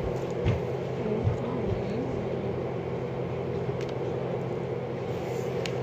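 Steady low machine-like hum, with a few faint clicks and a faint brief voice about a second in.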